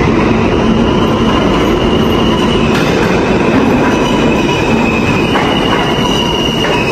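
New York City subway E train pulling into the station: a loud, steady rumble of steel wheels on the rails, with a high, steady wheel squeal above it.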